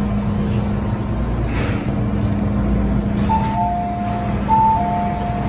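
MTR M-train door-closing chime: a two-tone high-low beep pattern heard twice, starting a little past halfway, over the steady hum and rumble of the train standing at the platform.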